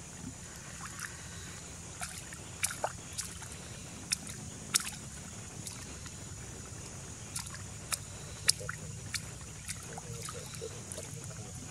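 A crocodile's jaws snapping and crunching a whole raw chicken in shallow water: a dozen or so sharp, irregular cracks, the loudest about five and eight and a half seconds in, over a steady low hum.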